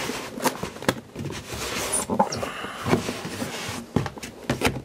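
Cardboard handling: a boxed camcorder being slid and lifted out of a cardboard shipping carton, a run of scraping rustles with several sharp taps and knocks.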